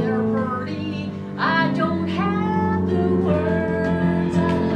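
A woman singing a melody over instrumental accompaniment, with a sharp upward slide into a note about a second and a half in.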